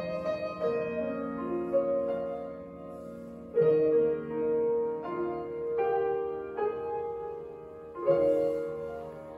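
Grand piano playing a slow, gentle piece in sustained chords, with new chords struck firmly about three and a half seconds in and again about eight seconds in.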